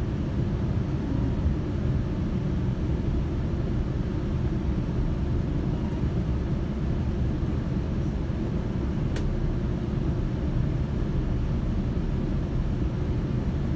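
Steady low rumble of a GO Transit commuter train in motion, heard from inside the passenger coach, with a faint tick about nine seconds in.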